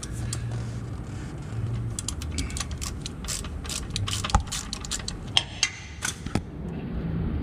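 Socket ratchet clicking in irregular runs of sharp metallic clicks as the 14 mm oil drain plug is worked loose.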